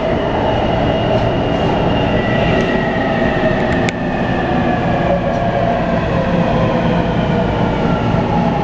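Taipei Metro C321-type refurbished train running, heard from inside the car. The traction inverter and motor whine falls slowly in pitch as the train slows, over steady wheel and running noise. This is the inverter sound the recording singles out as abnormal. A single sharp click comes about four seconds in.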